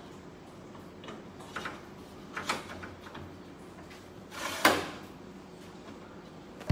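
A few short scrapes and knocks, the loudest a brief sliding scrape about four and a half seconds in.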